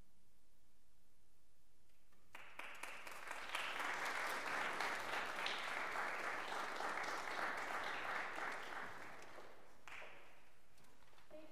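Audience applauding, starting about two seconds in after a brief hush and dying away near the end.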